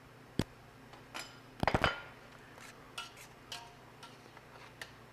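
Metal tongs knocking and clinking against a stainless steel mixing bowl. There is a sharp knock about half a second in, a louder cluster of clanks near the two-second mark, then lighter clinks with a brief metallic ring, over a low steady hum.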